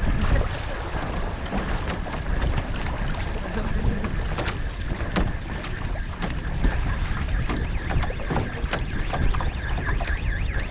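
Water rushing and splashing along an outrigger canoe's hull and float as the crew paddles, with irregular splashes of paddle blades entering the water. Wind buffets the microphone with a low rumble.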